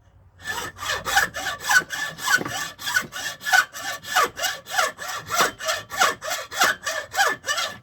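Hand saw cutting into caribou antler in quick, even back-and-forth strokes, about three to four a second, that stop suddenly near the end.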